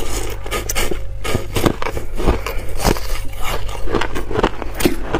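Hard ice crunched between the teeth close to the microphone: sharp cracking bites, about two a second, as a mouthful of ice is chewed.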